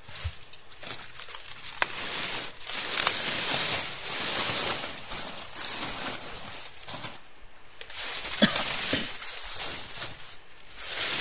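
Large dry leaves rustling and crackling as a person shifts about among them. The rustling comes in uneven bursts, with a few sharp snaps, the loudest a little after 8 seconds in.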